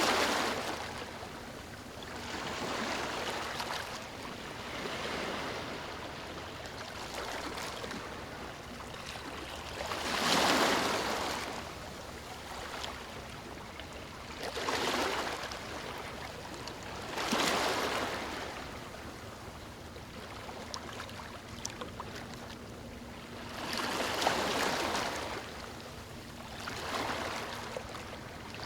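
Ocean waves breaking and washing up a beach: surges of surf that swell and fade every few seconds, the biggest about ten seconds in and again near the end.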